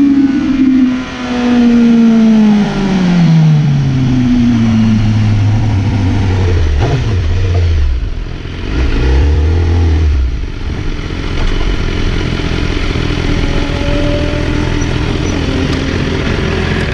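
BMW S1000RR inline-four engine heard from on the bike, its pitch falling steadily over the first few seconds as the bike slows off the throttle. It then runs low and fairly steady at walking-pace speed, wavering a little around the middle.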